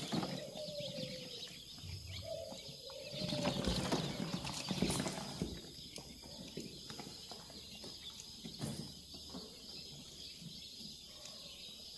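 Rustling and scattered light knocks as a small quail is handled and held in the hand, with a faint falling tone about two seconds in.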